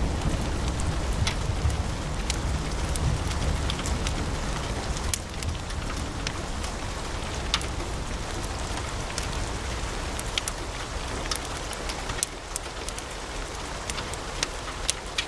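Wood fire burning in a fireplace: a steady hiss with frequent, irregular sharp crackles and pops of burning logs. A low rumble at the start eases off within the first few seconds.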